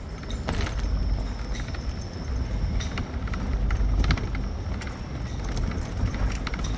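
Vehicle rolling slowly over a brick street: a steady low rumble of engine and tyres, with scattered rattles and clicks and a faint steady high whine.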